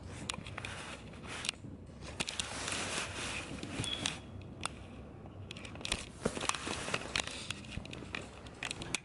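Handling noise from a camera being wedged against a leather couch cushion: scattered clicks and taps with rustling, rubbing scrapes.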